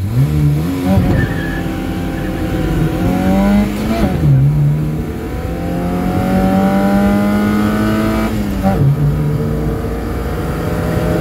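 Car engine accelerating hard in a drag run, heard from inside the cabin. The revs climb steadily and fall back sharply at gear changes about four and nine seconds in.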